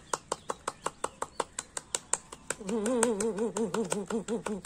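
Rapid, steady hand clapping, about six claps a second, done as a clapping yoga exercise at its fastest round. About two and a half seconds in, a voice joins in with a wavering pitch that bobs in time with the claps.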